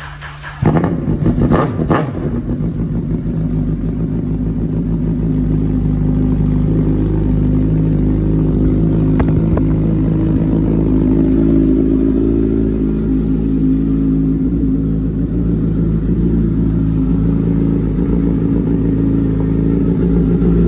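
Motorcycle engine on a cold winter start, catching just under a second in with a few rough firing strokes, then settling into steady running that builds slightly over the next few seconds and holds.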